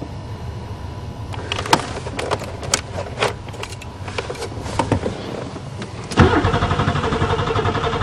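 Light clicks and rattles of fuses and dash trim being handled. About six seconds in, the Buick Regal's 3.8 V6 is cranked by the starter, turning over steadily in quick even pulses without catching, as in a no-start.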